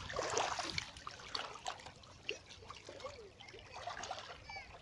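Seawater trickling and splashing, with many small irregular clicks.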